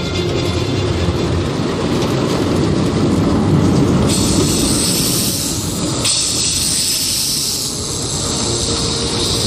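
Storm wind with a low rumble and hiss, with louder gusts of high hiss coming in about four seconds and again about six seconds in.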